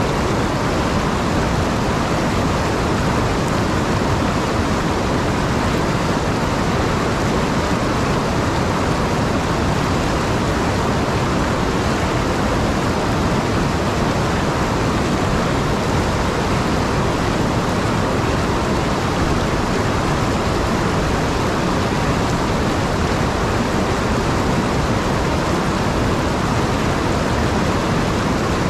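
River water pouring over a dam spillway and churning into whitewater across rock ledges: a steady, loud rushing that does not change.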